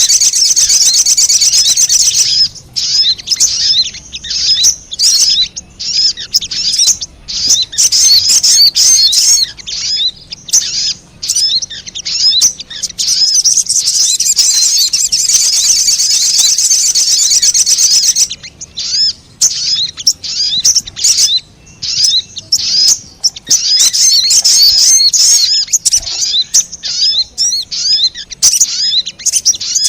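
Sogon (little spiderhunter) lure call: loud, high, rapid chirping notes, in dense unbroken runs alternating with stretches of separate chirps and short pauses.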